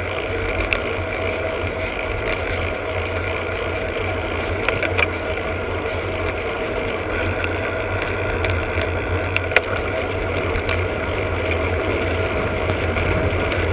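Road bike rolling on asphalt, heard from a camera clamped under the saddle: a steady rumble of tyre and road vibration with a faint whine over it, and a few sharp clicks and knocks from bumps in the road.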